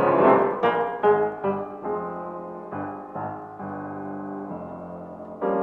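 Piano music: a slow line of separate struck notes and chords, one held for about a second, with a louder chord struck near the end.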